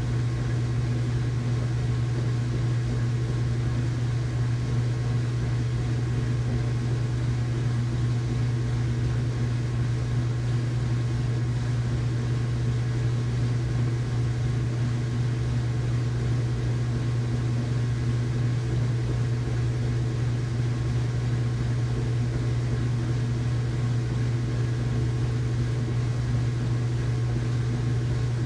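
Household washing machine running in its rinse cycle, a steady low motor hum with fainter tones above it that holds unchanged throughout.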